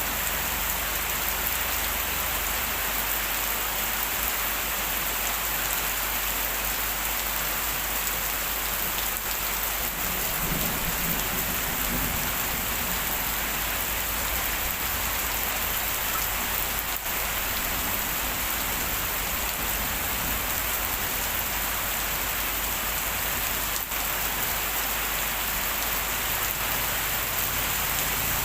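Heavy rain pouring down steadily, a dense, even hiss of drops on surfaces.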